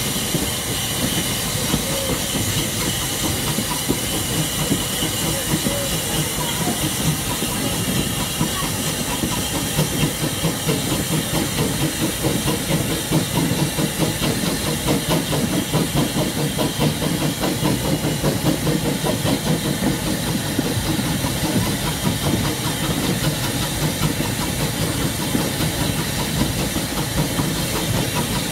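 Furness Railway No. 20, an 1863 Sharp Stewart 0-4-0 steam locomotive, running under steam with a fast, even exhaust beat and steady steam hiss, mixed with the rumble and clatter of train wheels on rail.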